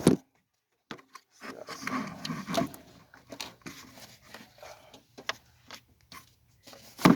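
Irregular clicks, knocks and rustling as the engine's air intake duct is handled and fitted back on by hand.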